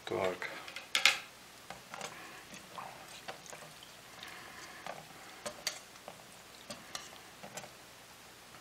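Wire whisk clinking and scraping irregularly against a stainless steel pot as it presses bread buns down into hot water so they soak through.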